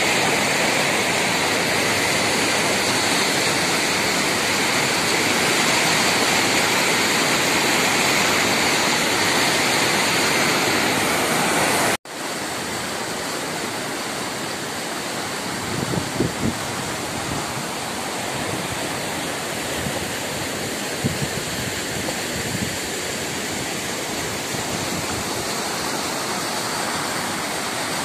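Muddy floodwater rushing. It runs fast over a street at first, then after an abrupt cut about halfway through it becomes a swollen river in spate pouring over a low crossing. There is a steady, loud rush of water throughout, with a few low bumps in the second part.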